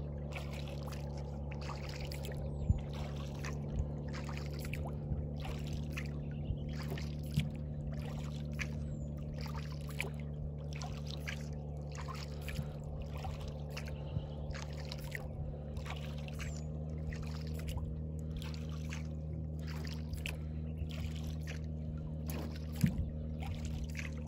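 Small tin boat moving over calm water: quick, regular splashes and drips of water, about one and a half a second, over a steady low hum. There are a couple of sharper knocks on the boat, about three seconds in and near the end.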